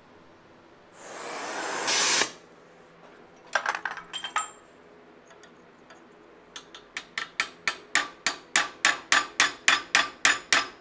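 Hammer striking a small eyeball punch into hot Damascus steel held in a vise: a few light taps, then from about two-thirds of the way in a steady run of sharp, ringing blows, about two to three a second and growing louder. A brief hiss sounds about a second in.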